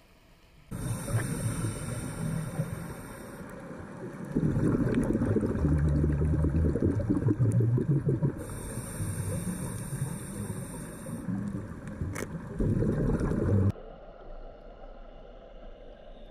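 Scuba diver breathing through a regulator, heard on an underwater camera: a hissing inhale, then a long gurgling rumble of exhaust bubbles, twice over. It goes quieter near the end.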